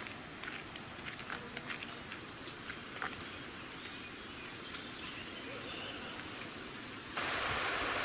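Footsteps of two people crunching on a gravel path, passing close and then moving away. About seven seconds in, the steady, louder rush of a fast-flowing river takes over.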